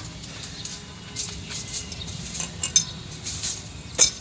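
Metal parts and hand tools clinking and scraping, with a sharp clink at the start, a run of lighter clinks and scrapes in the middle, and another sharp clink near the end, over a steady low hum.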